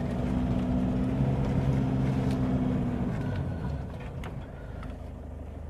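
Four-wheel-drive vehicle's engine running as it drives up a rough track, the engine note dropping away about three seconds in to a lower, steady hum as it eases off. A couple of sharp clicks or knocks over it.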